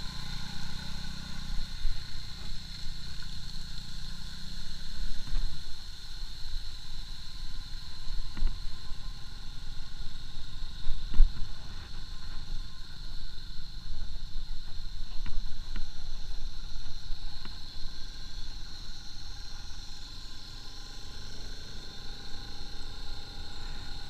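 Motorcycle riding along a rough road, heard from the rider's camera: the engine runs under a steady rumble of wind and road noise, with a constant high whine and a few knocks, the sharpest about halfway through.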